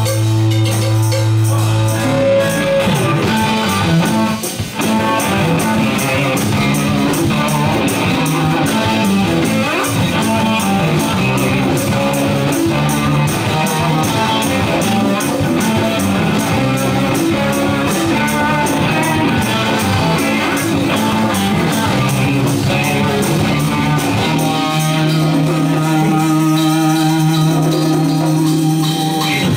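Rock band playing an instrumental: electric guitar lead over drum kit and bass, settling into long held notes near the end.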